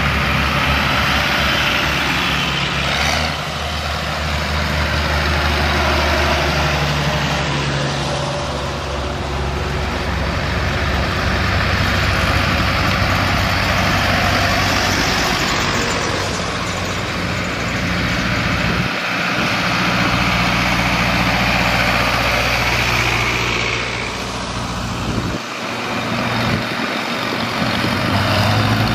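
Farm tractors, John Deeres and a red International Harvester, driving past one after another, their engines running at a steady pitch. The sound swells as each one passes and fades, several times over.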